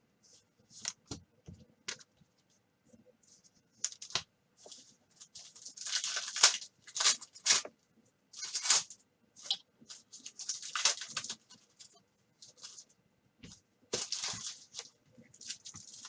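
Basketball card pack wrapper being torn open and crinkled by hand, with the cards inside handled. It comes as a string of short, irregular crackling bursts, loudest around the middle.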